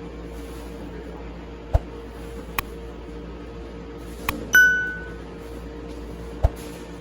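A few sharp clicks and knocks over a steady low hum; about halfway through, a loud metallic ping rings out for about half a second.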